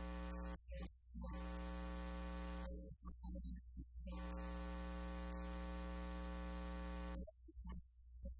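Steady electrical mains hum and buzz with hiss. It drops out abruptly three times and comes back.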